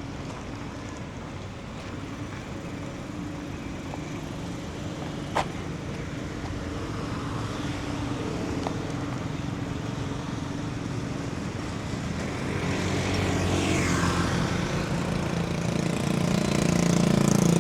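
City street traffic with engines running. There is a sharp click about five seconds in, and a vehicle engine grows louder over the last few seconds.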